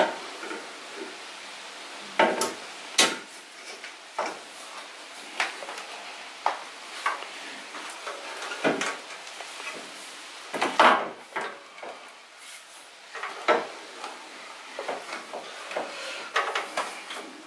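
Irregular knocks, clicks and scrapes from an aluminium aftermarket intercooler being worked into place behind the car's front bumper beam, bumping against the plastic ducting and metal around it. The loudest knock comes about eleven seconds in.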